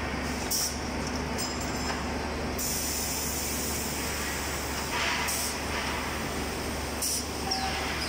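Steady running noise of an automated leaf spring production line's machinery, a constant mechanical din with a low hum, broken by several short hisses.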